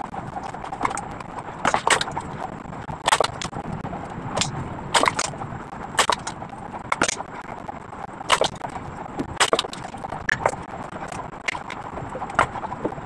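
Sharp snips of hand pruning shears cutting flower stems and leaves, about one a second and sometimes two in quick succession, over steady background noise.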